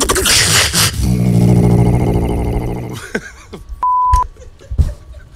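Beatboxer making a loud buzzing vocal sound into a handheld microphone, which settles into a held low droning tone for about two seconds. Around four seconds in, a short, steady pure beep, followed by a few mouth clicks.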